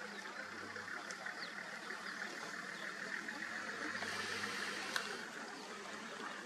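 Quiet, steady open-air ambience: an even hiss with a faint low hum beneath it, broken by a single sharp click about five seconds in.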